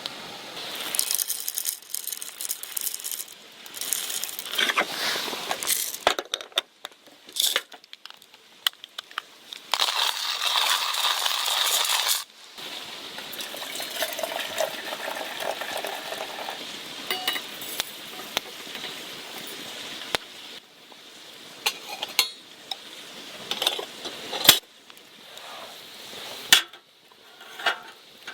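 Clinks and knocks of camp cookware and utensils being handled, with a few seconds of steady hiss about ten seconds in.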